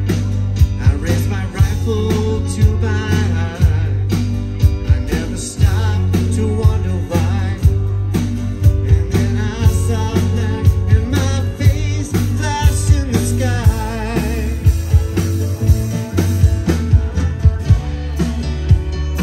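Live band playing a rock song on two acoustic guitars, keyboard and drum kit, the drums keeping a steady beat.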